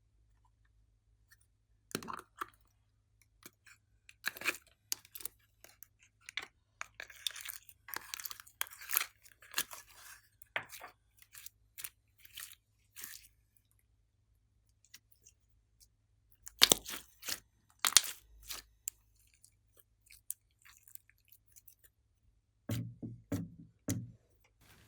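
Slime being squeezed and worked by hand, giving bursts of sharp, crackly clicking pops. A few duller squelches come near the end.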